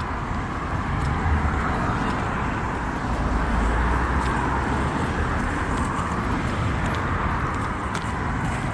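City street traffic: cars driving past with a steady hiss of tyres and engines. A low rumble from a passing vehicle swells in the first half and then fades.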